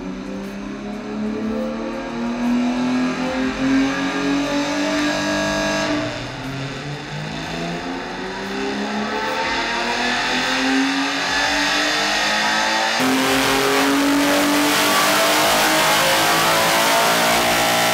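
Air-cooled four-valve engine on an engine dyno being revved, its pitch climbing steadily. About six seconds in it drops back abruptly and climbs again, then runs steady at high revs over the last few seconds.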